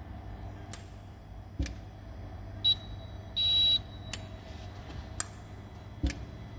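Hoefler EMZ 632 gear checking machine under power: a steady low hum with sharp clicks every second or so. About three seconds in it gives a high electronic beep, a short one and then a longer one about half a second later.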